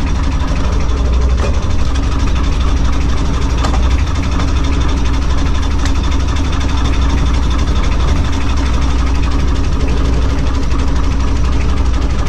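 Outrigger fishing boat's engine running steadily with an even low hum.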